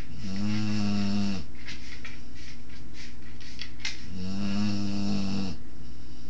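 A 20-week-old Boerboel puppy snoring in its sleep: two long, low snores, one just after the start and one about four seconds in, with faint crackly breath sounds between them.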